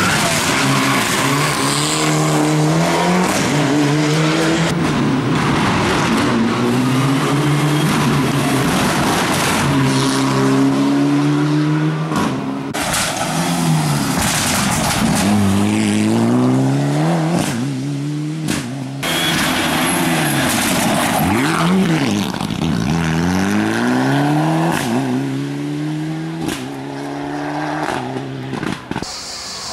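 Mitsubishi Lancer Evolution rally car driven hard on a closed stage. Its engine note climbs and drops over and over as it accelerates, shifts gear and lifts off through several passes.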